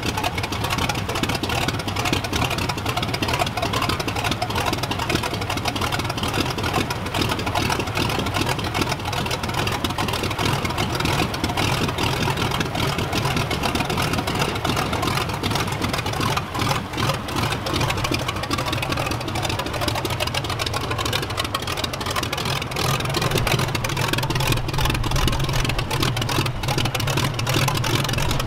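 1918 Curtiss OX-5 liquid-cooled V8 aircraft engine running steadily on a test stand, turning its fixed-pitch wooden propeller. It runs a little louder in the last few seconds.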